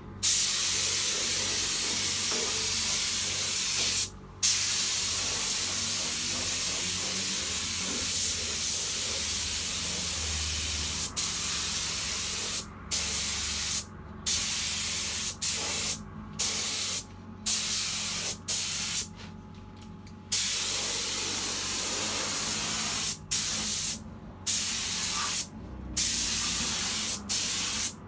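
Compressed-air paint spray gun spraying primer, a steady hiss. It runs in long passes for the first ten seconds or so, broken briefly about four seconds in, then in shorter bursts with many brief pauses between them.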